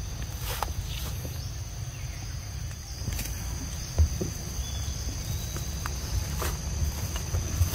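Steady high-pitched insect buzzing, over low rumbling and scattered clicks of someone walking through grass and undergrowth, with one thump about four seconds in.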